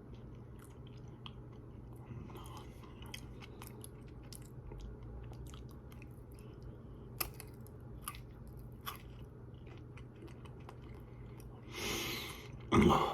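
Close-miked chewing of chocolate-covered Pocky biscuit sticks: scattered crisp crunches and mouth clicks. A louder breathy sound comes near the end.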